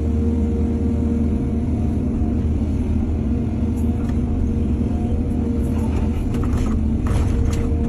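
Excavator's diesel engine running steadily with a low drone and a constant whine. A few brief clatters come near the end.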